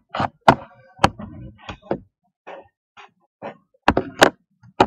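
A series of about ten sharp, irregular knocks and taps close to the microphone.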